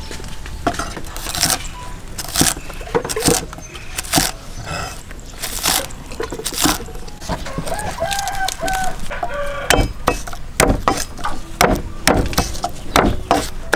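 A steel cleaver chopping green onions against a wooden chopping block in a series of sharp knocks that come quicker in the last few seconds. A chicken calls once in the background about halfway through.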